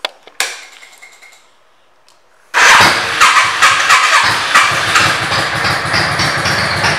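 Two sharp clicks, then about two and a half seconds in a 2005 Yamaha V Star 650's air-cooled V-twin fires up through aftermarket Vance & Hines pipes. It is blipped several times, then runs steadily at idle.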